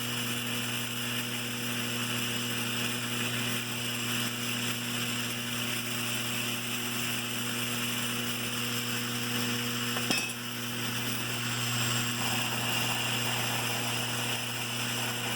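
Steady electric buzz of a Lionel 3656 operating cattle car and stockyard's vibrator mechanism as it shakes the plastic cattle along, with a faint clatter of the figures. A single sharp click comes about ten seconds in.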